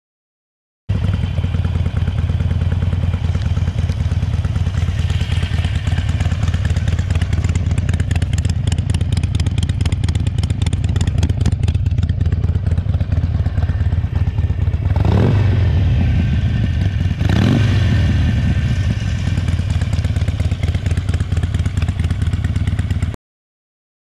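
Harley-Davidson Sportster Forty-Eight's V-twin idling through a Penzl V2 valved exhaust with its ball valve fully open, with a deep, uneven rumble. Revved twice a little past the middle, about two seconds apart, the pitch rising and falling back each time.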